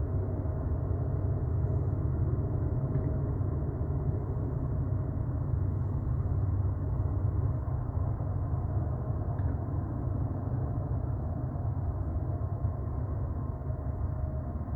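A train passing: a steady, continuous low rumble with a faint steady tone above it.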